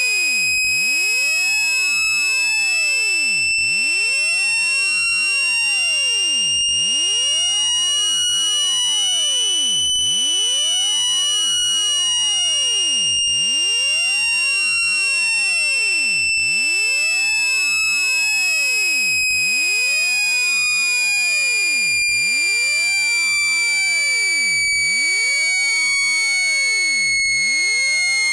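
Loud, steady electronic test tone played to push water out of a wet phone speaker. It is high-pitched and even in volume, slowly rising in pitch, then gliding slowly back down over the second half.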